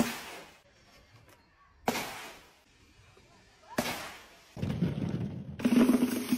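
Objects dropped from a height striking and bursting on a board below: three sharp impacts about two seconds apart, then a dense run of rapid pops and crackles for the last couple of seconds.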